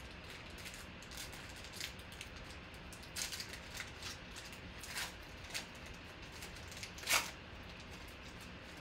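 Foil wrapper of a trading card pack being torn and peeled open by hand: irregular short crinkles and rips, with the loudest crinkle about seven seconds in.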